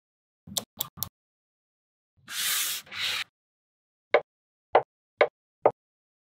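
Small wooden blocks set down upright one after another on a clear plastic sheet, four sharp taps about half a second apart in the second half. Earlier come three quick light clicks and a brief scraping rush.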